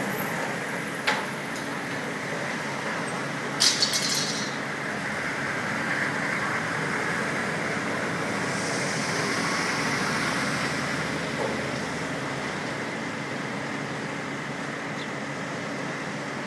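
Steady street traffic noise, with a sharp metallic click about a second in and a short cluster of metal clinks about four seconds in, from linemen's tools on the overhead streetcar wire hardware.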